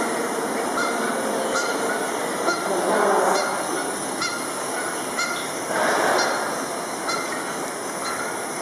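Played-back bird calls from an airport light-and-sound installation: short calls repeating about once a second over a steady hiss, with two louder swells of noise about three and six seconds in.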